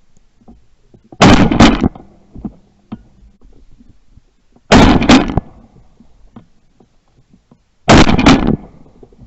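Three loud crashing, rustling bursts about three seconds apart, each lasting well under a second: dry brush and tall grass being pushed and kicked through close to the microphone while searching for a downed dove.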